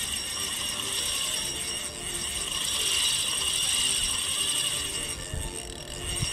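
Penn Spinfisher 8500 spinning reel's drag clicking in a steady rapid ratchet as a fish pulls line off the spool, louder toward the middle.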